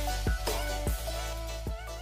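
Background music with a kick drum beat and a sustained deep bass, slowly getting quieter toward the end.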